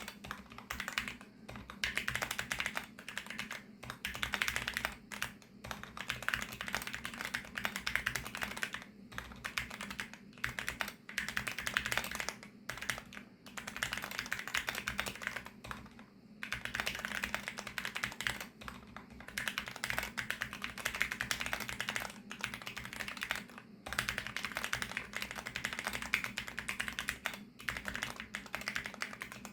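Fast typing on a VARO V68+ mechanical keyboard with factory-lubricated VARO Panda linear switches: dense runs of key strokes in bursts of a few seconds, broken by short pauses.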